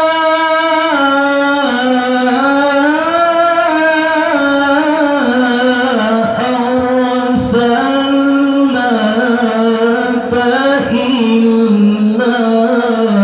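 A qari's high-pitched, melodic Quran recitation (tilawah) in Arabic, sung into a handheld microphone. It is one long ornamented phrase that slides between held notes.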